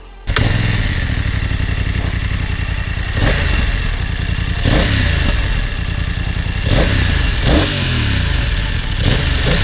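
BMW F900XR's parallel-twin engine, its revs rising and falling several times over a steady rushing noise. It cuts in abruptly about a third of a second in.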